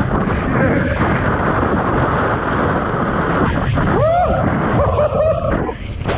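Strong wind buffeting a GoPro microphone over breaking surf: a loud, continuous rush with heavy rumble.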